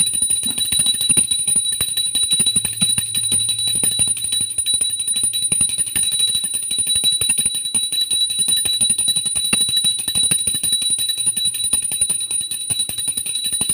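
Puja hand bell rung fast and without a break for the aarti: a steady high ringing over a quick rattle of clapper strikes.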